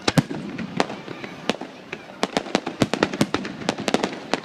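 Fireworks display going off: an irregular string of sharp bangs and crackling pops, a few at first and then coming thick and fast from about two seconds in.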